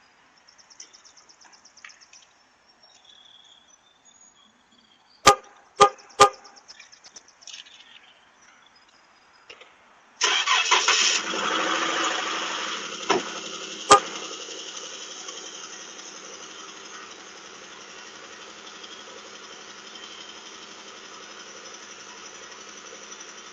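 Three short horn chirps about half a second apart, then a 2013 Jeep Wrangler JK's 3.6-litre Pentastar V6 starts about ten seconds in, runs loud at first and settles into a steady idle. The idle carries the ticking the owner calls the Jeep 'death tick'.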